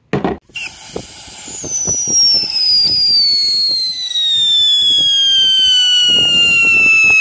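A homemade whistle-to-salute ground firework (a 'screaming demon') screaming: after a brief noise at the start, a loud whistle sets in and its pitch falls steadily for about six and a half seconds, with a crackle underneath. The whistle stops abruptly at the end, the point where the salute's report follows.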